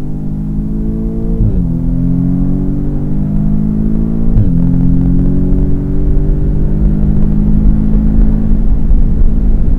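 Audi S3 8VA's turbocharged 2.0-litre four-cylinder engine accelerating hard, heard from inside the cabin, with two quick upshifts about one and a half and four and a half seconds in. After each shift the engine pitch drops and then climbs again, over a steady low road and tyre rumble.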